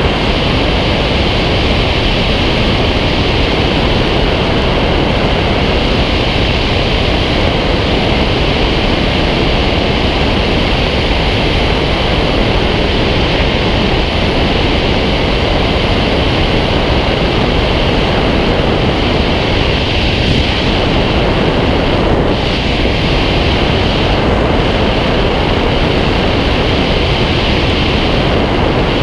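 Steady, loud rush of airflow over a camera mounted on a Fox glider in flight.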